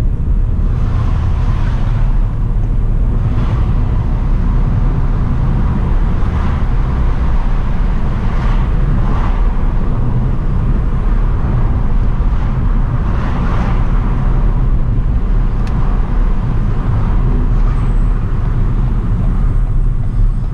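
Ford New Fiesta on the move, heard from inside the cabin: a steady low rumble of engine and tyre noise, with a few faint ticks.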